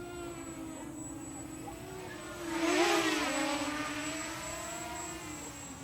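Brushless quadcopter motors and propellers whirring with a steady hum. About two and a half seconds in, the throttle goes up: the pitch climbs and the sound grows louder, then it eases back to the steady hum.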